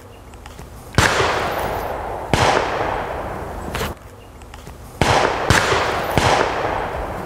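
Benelli Raffaello inertia-driven semi-automatic shotgun firing several shots a second or more apart, each a sharp bang trailing off in a long echo.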